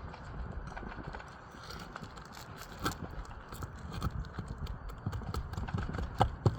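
Scattered light clicks and sharp knocks of tools and shingles being handled during a roof shingle repair, with the loudest knocks about three seconds in and near the end, over a low rumble of wind on the microphone.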